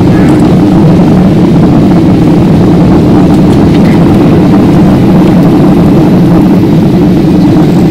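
Cabin noise of a Boeing 737 airliner in flight after takeoff: the engines and airflow make a loud, steady low rumble.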